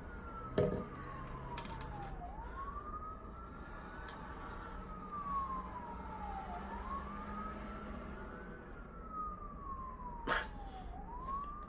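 An emergency vehicle's wailing siren, its pitch rising and falling slowly about every four seconds. A short knock is heard about half a second in and another near the end.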